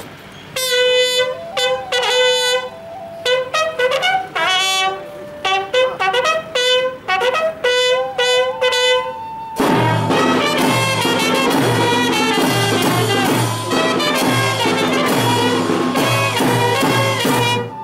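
Brass band music: a single brass instrument plays a melody of short, separate notes, then a little under ten seconds in the full band comes in with a regular beat in the low notes.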